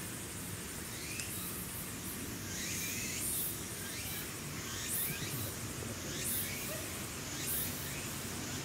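Outdoor ambience: a steady low background hum with a short, high-pitched chirp repeating about once a second, from an insect or bird calling somewhere in the surroundings.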